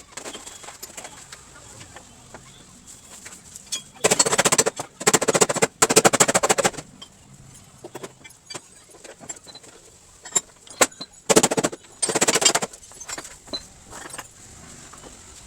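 Five short bursts of rapid, evenly repeating rattling from a power tool, three about four seconds in and two more near the end, with scattered clicks and knocks between them.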